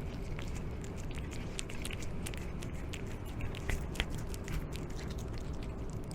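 Cats chewing and biting grilled hagfish, a run of small wet clicks and crunches over a steady low outdoor rumble.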